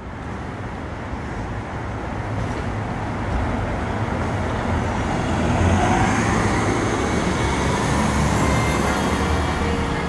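City street traffic with the low rumble of vehicle engines, growing louder toward the middle and easing off near the end.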